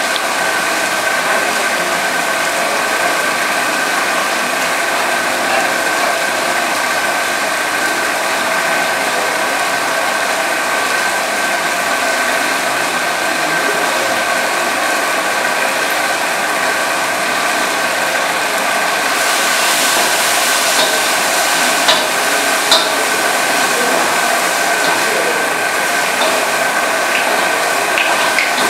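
Steady whirring drone of a kitchen fan motor, with a few steady tones in it. About two-thirds of the way through, a higher sizzling hiss from the wok rises, and a few sharp clicks of a metal ladle against the wok come near the end.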